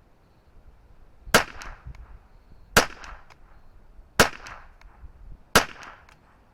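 Ruger 10/22 semi-automatic rifle with a 20-inch Kidd barrel firing Eley Contact subsonic .22 LR: four single shots about a second and a half apart, each a sharp crack with a short ring after it. These are the cold bore fouling shots.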